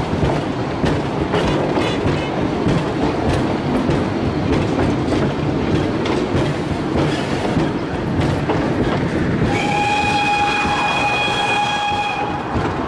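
Narrow-gauge steam train running, its carriages rumbling with the wheels clicking over the rail joints. About two-thirds of the way through, the steam locomotive's whistle sounds one steady blast of about three seconds.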